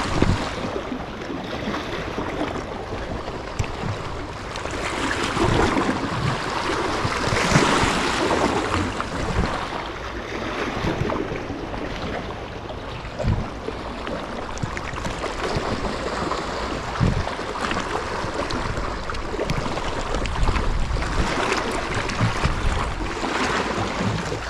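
Sea waves washing against a rocky shore, swelling and ebbing every few seconds, with wind buffeting the microphone and a couple of brief knocks.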